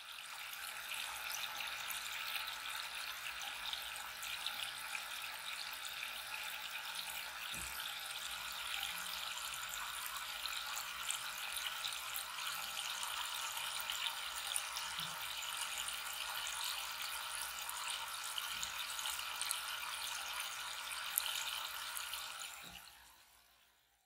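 Water of a homemade tabletop waterfall fountain falling in many thin streams and splashing steadily into its basin. It fades out near the end.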